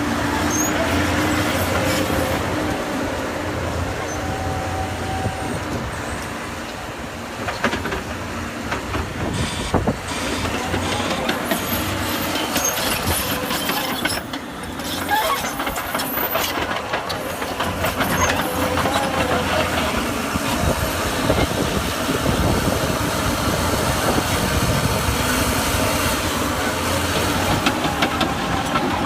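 Volvo L220F wheel loader working: its diesel engine runs steadily under load, with a whine that comes and goes and occasional knocks.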